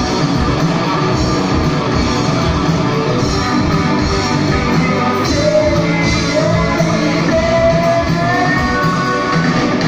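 Rock band playing live and loud: electric guitars with a singer's voice over a steady beat.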